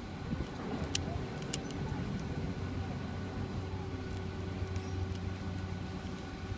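Steady mechanical hum of chairlift machinery, a low drone with a few steady higher tones over it, with a few sharp clicks about a second in.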